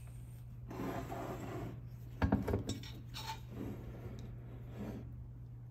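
Metal parts being handled during a vacuum test of a turbocharger wastegate: rubbing and light clinking, with a sharp cluster of clicks a little over two seconds in, over a steady low hum.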